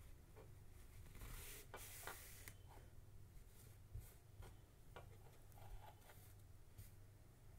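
Faint rustling and light taps of cotton cloth being handled and smoothed flat on a tabletop, over a low steady hum.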